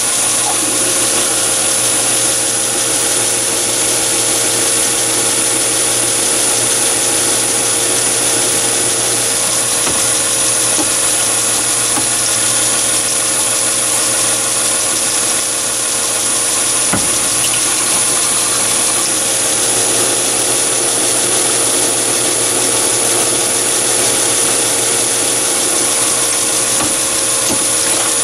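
Mini lathe running steadily at about 845 rpm while a drill bores a pilot hole through the workpiece, with a steady hum and a constant high-pitched whine from the machine. There is one brief click about two-thirds of the way through.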